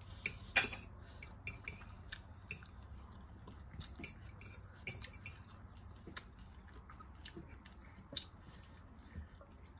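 Quiet eating by hand: a scattering of small, sharp clicks and smacks as roast chicken is bitten and chewed, the loudest about half a second in.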